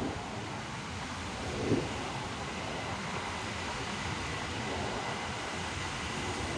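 High-speed electric multiple-unit train rolling slowly along the platform, giving a steady low running noise with a faint steady high whine and a brief low bump about two seconds in.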